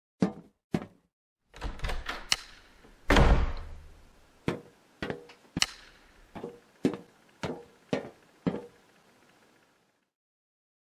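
A series of sharp knocks and thuds. First come two quick knocks and a cluster of hits, then a heavy slam with a low rumble about three seconds in. After that come eight evenly spaced knocks, a little over half a second apart, which stop near the end.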